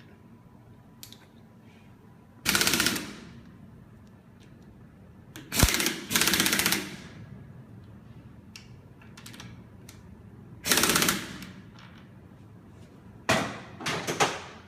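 Pneumatic impact wrench rattling in short bursts, about four times, running down the bolts of a Hydramatic gearbox's reverse cone clutch. The last burst comes near the end as a quick cluster of short rattles.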